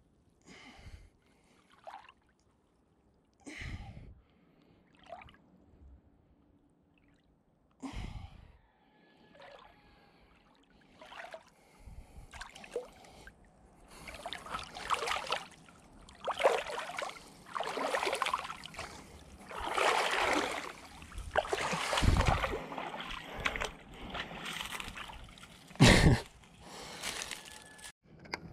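Pond water sloshing, gurgling and splashing against a body-worn GoPro as it wades at chest depth, mixed with the wearer's breathing. Only scattered sloshes at first, then near-continuous and louder through the second half, with one sharp splash near the end.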